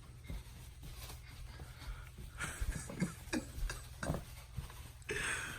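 Faint breathy sounds and short soft vocal noises from a small child, a handful of brief bursts with a louder breathy one near the end.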